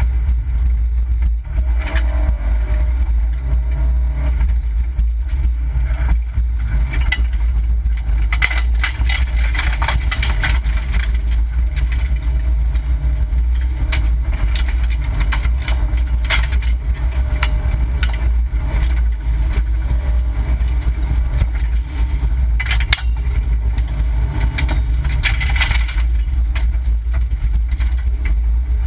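Opel Corsa B rally car at racing speed on a gravel stage, heard from inside the cabin: the engine running hard over a deep steady rumble, with gravel and stones clattering against the underbody, heaviest in two spells.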